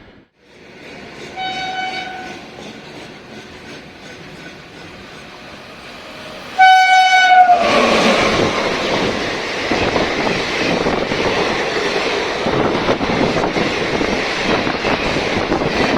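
Indian Railways express train approaching: the locomotive horn sounds briefly, then again much louder for about a second, dipping slightly in pitch as it ends. The train then runs past with a loud rush and a clatter of wheels on the rails.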